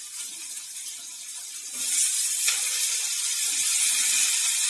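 Raw potato pieces dropped into hot oil in a kadai, sizzling with a steady hiss; the sizzle grows louder about two seconds in as more pieces go in.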